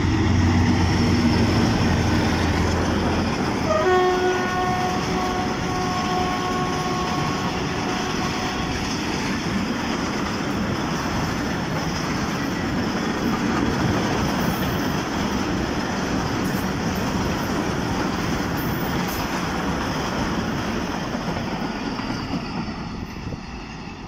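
A diesel locomotive hauling a freight train passes close by, its engine loud for the first few seconds, then a train horn sounds for about four seconds. The long line of tank wagons follows with steady wheel-on-rail noise that fades near the end.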